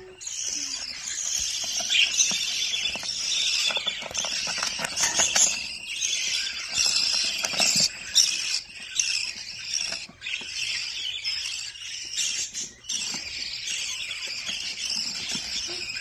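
Budgerigars in a nest box chattering and cheeping in a dense, high-pitched stream, with a few scratchy clicks in the middle.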